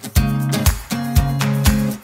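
Background music with a steady beat, about two strokes a second.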